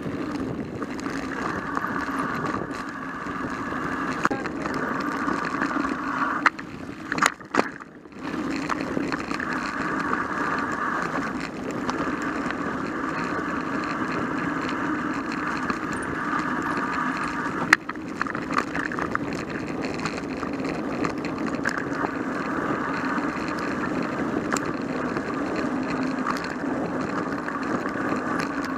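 Mountain bike rolling over a dirt singletrack: a steady rumble of tyre and rattle noise, with a cluster of sharp knocks about seven seconds in and another single knock a little before eighteen seconds.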